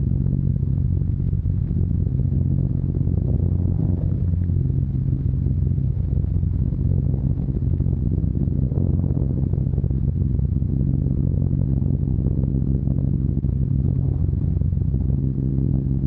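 Steady drone of a Short Stirling bomber's four Bristol Hercules radial engines in cruise, heard from inside the fuselage.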